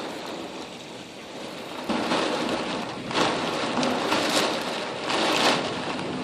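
Heavy thunderstorm rain pouring steadily, swelling louder about two seconds in and surging in gusts after that.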